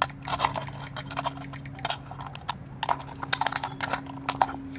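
Thin metal can being torn and peeled apart by hand: irregular crinkling clicks and crackles of the ripped metal, over a steady low hum.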